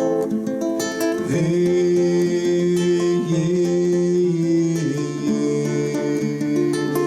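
Live acoustic guitar playing an instrumental passage between sung verses, strummed, with long held melody notes sustained over it from about a second in.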